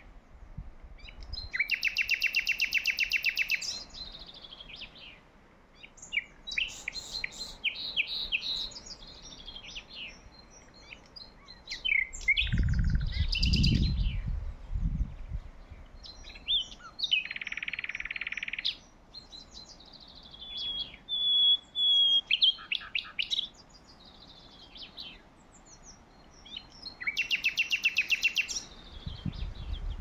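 Several songbirds singing in turn: fast rattling trills, short chirps and a few clear whistled notes. Two brief low rumbles on the microphone, one near the middle and one near the end.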